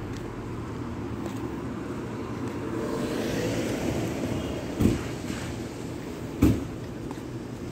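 Street ambience: a steady low traffic rumble, with a rush of noise that swells and fades around the middle, and two sharp thumps about a second and a half apart.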